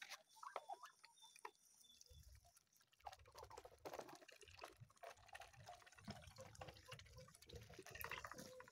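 Faint, quick clicking and wet dabbling of Muscovy ducks' bills pecking at feed in a shallow basin, with a low rumble joining in from about two seconds in.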